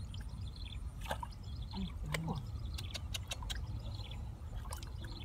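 Hands working through thin, watery mud in a pit, giving wet slaps and squelches, a handful of them sharp, over a steady low rumble. A bird sings a short high phrase over and over in the background.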